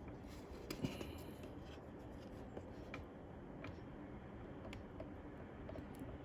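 Faint small clicks and scratching as fingers wiggle an iMac's display ribbon-cable connector loose from its socket, a few separate ticks spread across a few seconds.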